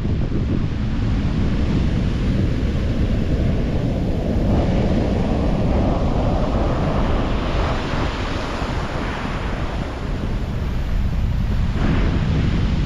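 Sea surf breaking on the beach under heavy wind buffeting the microphone. A swell of surf noise builds through the middle and fades again.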